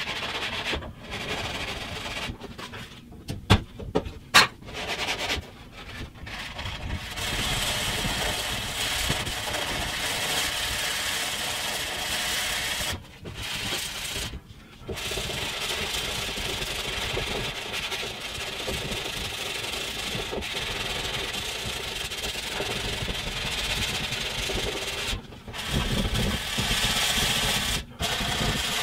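Hand sanding with a sanding sponge over dried Bondo glazing putty on a masonite door panel: a steady scratchy rubbing, back and forth, that stops briefly a few times, with a few sharp knocks about four seconds in. The glazing is being sanded down to check the patch for low spots.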